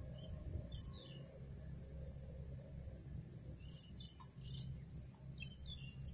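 Faint, quick bird chirps in a few short clusters: about a second in, then twice more in the second half. Under them is a steady low background rumble and a thin steady high-pitched tone.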